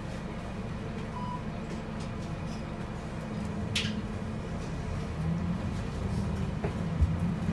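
Volvo B7RLE city bus's six-cylinder diesel heard from inside the cabin, running steadily at idle and then rising in pitch and level as the bus pulls away through its Voith automatic gearbox. A brief sharp sound comes about four seconds in and a low thump near the end.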